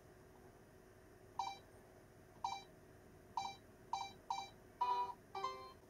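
Benesse Korasho character alarm clock giving its operating beeps: seven short electronic beeps at irregular intervals, the sixth a little longer than the rest.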